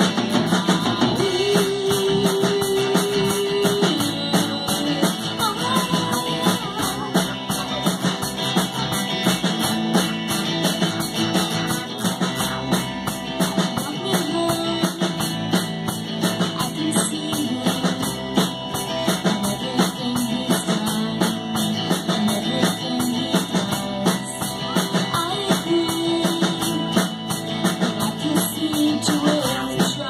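Live rock band playing: electric guitars and a drum kit with a steady beat.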